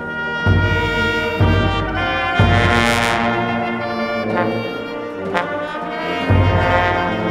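New Orleans brass band playing funeral music: trumpets and trombones over low sousaphone bass notes.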